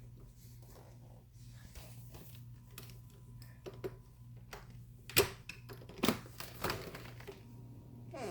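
Scattered light taps and clicks, then three louder sharp knocks a little past the middle, over a steady low hum.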